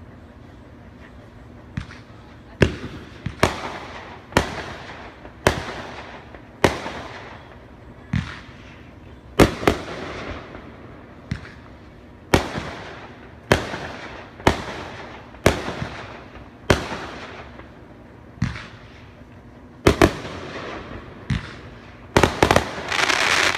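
Trinidad Scorpion 21-shot consumer firework cake firing, its shots going off about one a second as sharp bangs, each with a fading tail. It ends in a rapid cluster of bangs.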